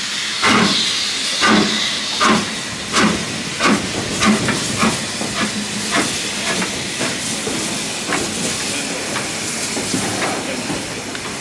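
BR Standard Class 9F steam locomotive 92214 starting away: exhaust chuffs begin about a second apart and quicken, over a steady hiss of steam, and grow weaker towards the end.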